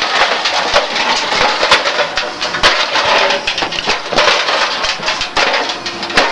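A toaster oven being smashed and crushed: continuous clatter of metal and glass pieces with many irregular sharp knocks.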